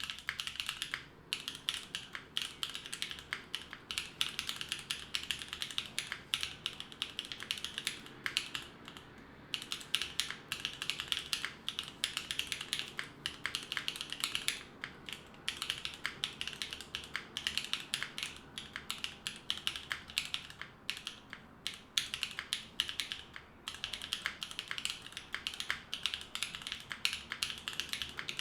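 Neo65 gasket-mounted mechanical keyboard being typed on fast and continuously, its lubed Gateron Cream Soda linear switches and GMK Serika keycaps clacking on an FR4 plate with no foam. The stream of keystrokes breaks off briefly a handful of times.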